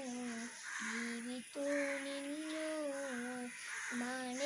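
A boy singing a Malayalam Mappila song without accompaniment, holding long steady notes, with short breaths between phrases.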